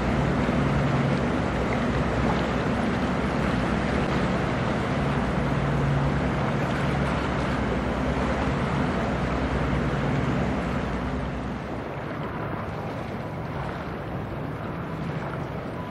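Engine of a passing coastal cargo ship running with a steady low hum over wind and water noise, fading away about eleven seconds in.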